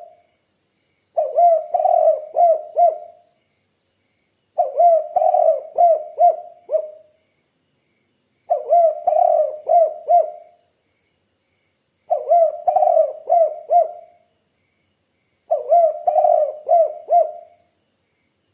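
Spotted dove cooing: repeated phrases of four or five low coos each, one phrase every three to four seconds.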